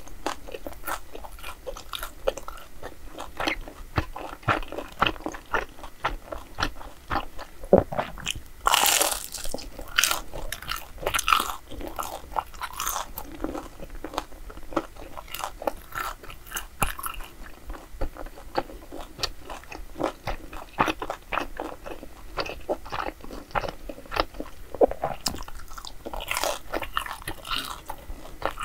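A person eating hotteok and grilled rice cake close to the microphone: repeated bites and chewing with many small crunchy clicks, and louder, longer crunching about nine seconds in and again near the end.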